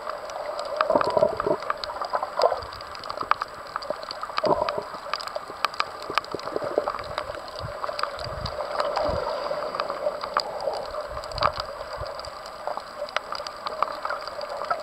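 Water sloshing and gurgling around a camera filming underwater, with many scattered sharp clicks and crackles.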